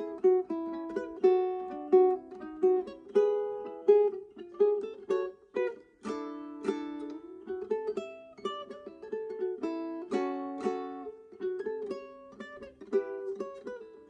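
Solo ukulele played fingerstyle: a melody of plucked notes over chords, each note ringing and dying away, with a few fuller, louder chords along the way.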